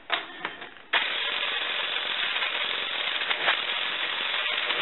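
Electric impact wrench starting up about a second in and running steadily on a wheel's lug nut, taking it off.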